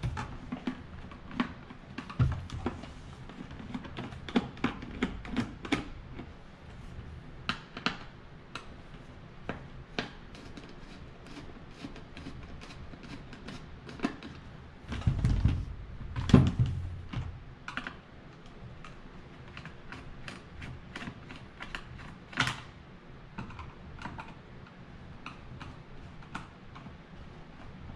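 Screwdriver backing out the visor screws on an O'Neal Sierra II helmet: irregular small clicks and ticks of the tool and screws against the plastic shell and visor. A cluster of heavier knocks and thumps comes about halfway through.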